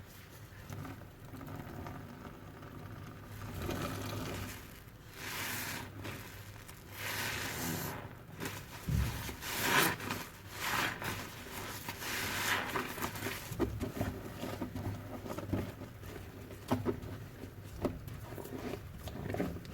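A soapy sponge soaked with dish detergent and Cif cream cleaner being squeezed over and over, giving wet squelching sounds. The squeezes come as a run of swells about a second long, thickest in the middle stretch.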